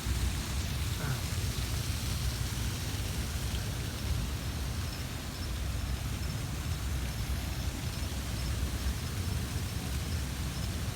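Slow-moving freight train cars rolling past: a steady low rumble with a noisy hiss over it.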